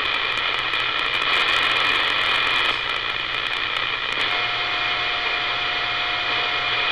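CB radio receiver hiss and static on an open channel between transmissions, with several faint steady heterodyne whistles and light crackling. Another steady whistle tone comes in about four seconds in.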